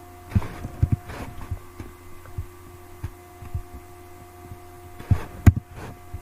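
A steady electrical hum with a series of irregular, soft low knocks and a single sharp click about five and a half seconds in.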